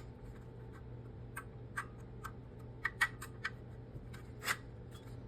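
Faint, irregular light clicks and taps of small parts and hand tools being handled while a laser head is taken apart, one slightly longer scraping click about four and a half seconds in, over a steady low hum.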